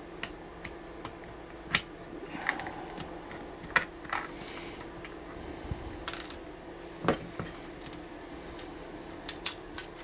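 Scattered small metallic clicks and taps from handling a disassembled brass padlock and the tools working on it, a few sharper knocks among them and a quick run of clicks near the end, over a steady low hum.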